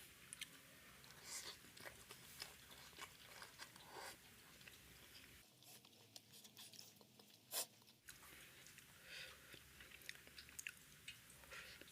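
A person chewing and biting food close to the microphone, the faint irregular mouth clicks and soft crunches of eating flatbread with egg curry, with one sharper click about two-thirds of the way through.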